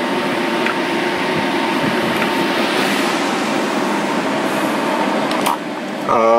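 Cooling fans on a homebuilt CB base amplifier running with a steady airy hiss and a faint thin whine, with a single click about five and a half seconds in.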